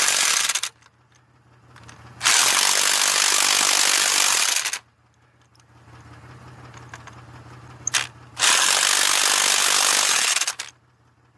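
Handheld power tool run in bursts: a short one at the start, then two long runs of about two and a half seconds each, with a brief blip just before the second. It is used while working on the wheel hub and brake drum.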